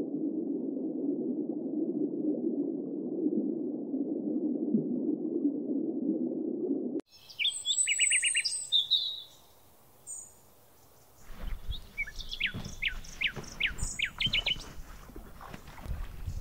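Muffled, steady rush of water heard through a camera held underwater in a river, cutting off suddenly about seven seconds in. Then small birds chirping and trilling in short phrases, over a low rumble of wind or water at the microphone.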